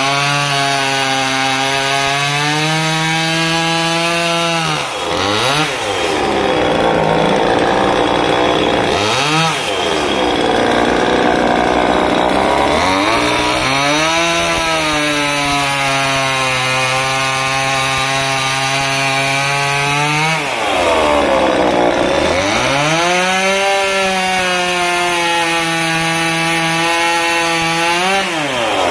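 Small two-stroke top-handle chainsaw running at high revs while cutting into a wooden stump. Its engine note falls and climbs back several times as the throttle is eased off and opened again between cuts.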